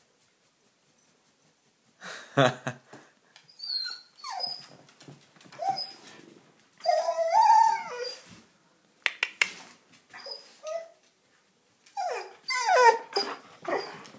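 German Shepherd whining and "talking", eager to go outside. From about two seconds in it gives a series of high whines and drawn-out yowling calls that slide up and down in pitch, the longest and loudest about seven seconds in. There are a few sharp clicks around nine seconds, and a run of falling whines near the end.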